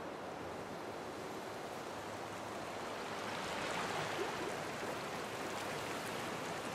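Ocean surf breaking and washing as foam over a rocky shore, a steady rush of water that swells a little about halfway through.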